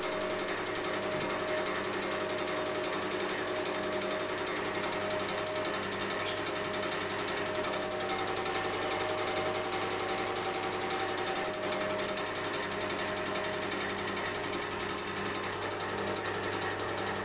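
Kobelco common rail diesel injector on a test bench, its solenoid fired by the injector driver about eleven times a second, giving a fast, even clicking over a steady hum. The injector is being tested for return leakage through its valve.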